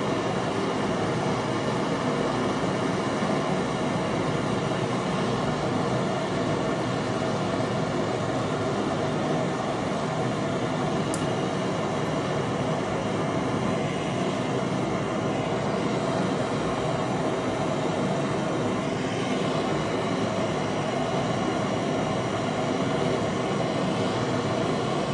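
Handheld gas torch flame burning steadily on a copper tube joint, a constant rushing hiss, as the joint is heated red-hot for brazing.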